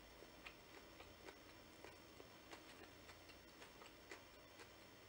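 Faint chewing of a Vietnamese baguette sandwich (bánh mì): soft, irregular mouth clicks, roughly two a second, over near-silent room tone.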